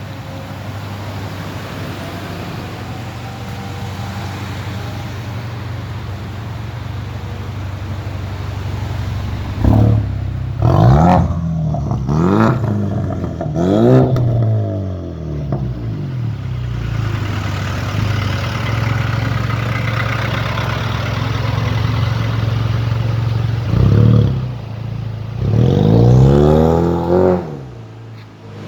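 Ford Mustang 2.3 EcoBoost's turbocharged four-cylinder engine idling steadily, then revved in several short throttle blips that rise and fall back to idle, the last one a little longer, near the end.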